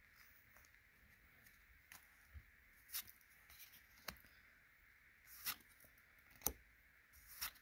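Faint handling of glossy trading cards as they are flipped through one by one: soft ticks and brief slides of card against card, about one a second.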